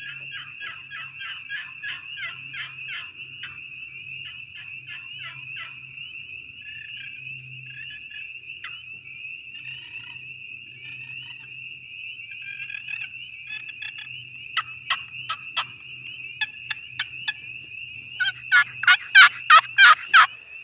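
A short wooden box turkey call, maple lid over a Honduran mahogany box, being played with turkey-like notes. It starts with soft rhythmic strokes, about three a second, moves to scattered single notes, and ends with a loud, quick series of about eight notes near the end.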